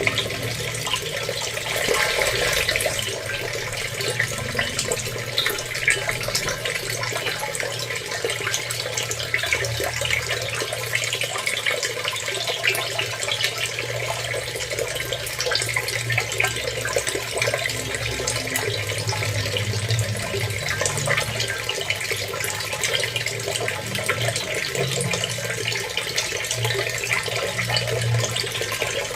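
Water running steadily, a dense stream of small splashes and trickles, with a low rumble underneath.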